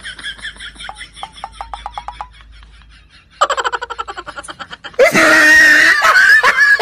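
Laughter in rapid pulses, then a second short burst about three and a half seconds in, and much louder laughter from about five seconds in.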